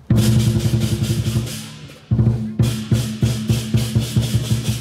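Lion dance drum and cymbals playing: a loud clash starts a run of fast drumbeats with bright cymbal wash that fades away, then a second clash a little after two seconds starts the drumming and cymbals up again.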